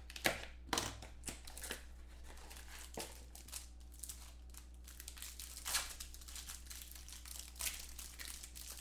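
Trading-card packaging and cards being handled: irregular crinkling and rustling with a few sharper clicks, the loudest just after the start, over a steady low hum.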